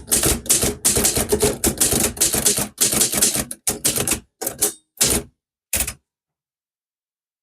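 Manual typewriter being typed fast, keys striking several times a second, thinning out to a few single strokes before stopping about six seconds in.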